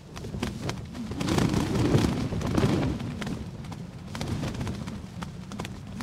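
Strong wind buffeting a small tent in a storm, with a low rumble and sharp irregular taps on the tent throughout. A gust builds about a second in and eases again after about three seconds.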